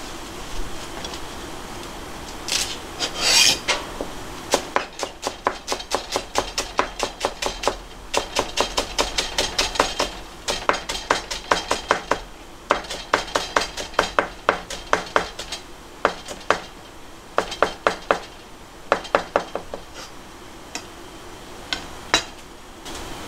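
Nakiri knife chopping rolled shiso leaves on a plastic cutting board: quick runs of sharp knife taps, several a second, with short pauses between runs. A brief scraping rustle comes about three seconds in, before the chopping starts.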